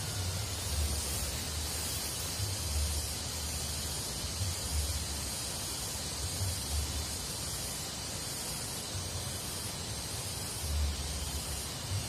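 Steady high hiss of outdoor ambience, with irregular low rumbles on the microphone every second or two.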